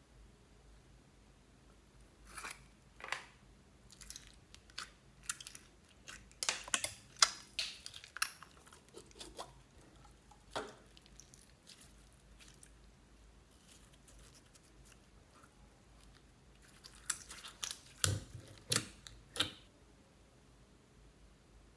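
Crackling clicks and crunches from clear slime full of small beads as it is squeezed out of a plastic tub by hand. The sounds come in two bursts with a pause between.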